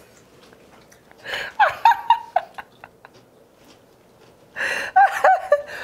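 Breathy laughter in two short bursts, one about a second in and a stronger one near the end.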